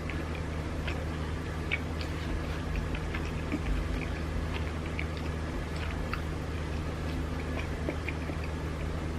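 Close-up chewing of sushi rolls: small, irregular wet clicks and smacks of the mouth, over a steady low hum.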